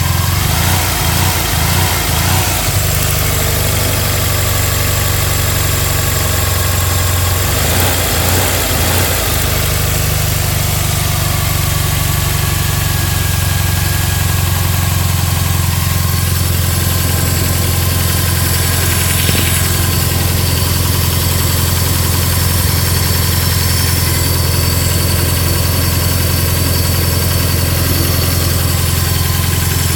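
Subaru WRX's 2.5-litre flat-four with catless up- and downpipes idling high and rough, the owner's complaint; the low note wavers unevenly near the start and again around eight seconds in.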